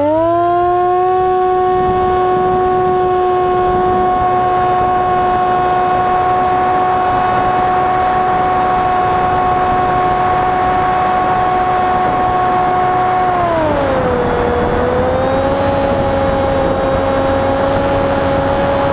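Radio-controlled model seaplane's motor and propeller, heard from on board, at full throttle for a takeoff from the water: a loud, steady whine. It drops to a lower pitch about 13 seconds in as the throttle is eased back once it is airborne.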